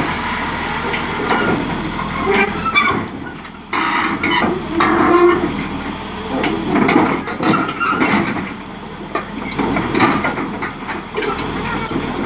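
Caterpillar D6 crawler bulldozer running, its steel tracks clanking and knocking in quick irregular clicks as it moves.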